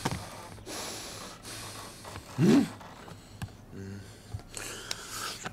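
A person breathing heavily in repeated hissing breaths, with one loud, short grunt about two and a half seconds in.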